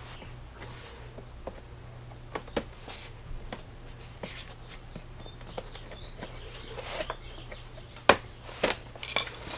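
Hard plastic clicking and creaking as the tabs of a Jeep Grand Cherokee's lower grille section are pushed out of the plastic lower bumper cover, with a few sharper snaps near the end. A steady low hum runs underneath.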